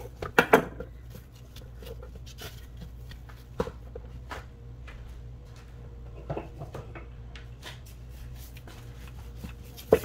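A knife cutting through seitan dough on a wooden board, followed by scattered light knocks and scrapes as the dough pieces and utensils are handled on the board, over a steady low hum. The loudest knocks come just after the start, as the blade goes through the dough onto the wood.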